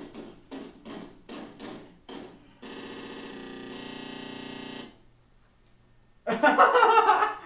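Chopped-up YouTube Poop audio playing from a television's speaker into the room: a clip repeated in quick stutters, then a steady buzzing tone held for about two seconds, a short pause, and near the end a very loud distorted blast.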